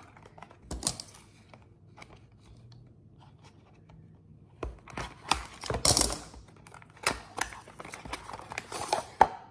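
Cardboard product box being handled and opened by hand: papery rustling, tearing and small knocks of the carton, sparse at first and busier in the second half.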